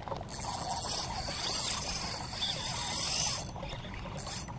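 Fishing line hissing off the reel during a long cast, for about three seconds, cutting off sharply as the lure lands.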